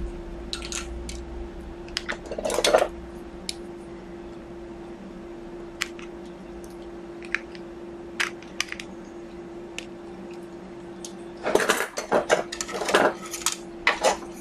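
Scattered light clicks and metallic clatter of hand tools and small parts being handled on an opened stereo receiver's metal chassis. Two busier bursts of clatter come about two seconds in and again near the end, over a steady hum.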